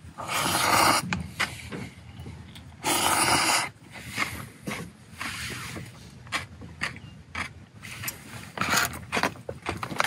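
Someone eating ramen: two slurps of noodles about a second long each, near the start and about three seconds in, with light clicks and scrapes of utensils between them.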